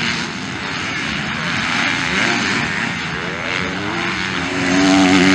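Several 250cc MX2 motocross bikes racing, engines revving up and down in pitch. The sound is loudest near the end, as two bikes pass close together over a jump.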